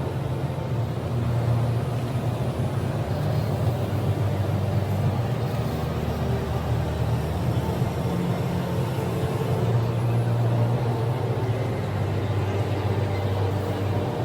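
Small electric motor of a DIY remote-control toy vehicle running steadily, a continuous low hum.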